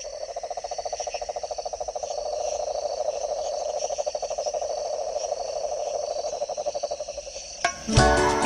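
A chorus of frogs and insects calling: a fast, pulsing trill under steady high chirring, with music coming in near the end.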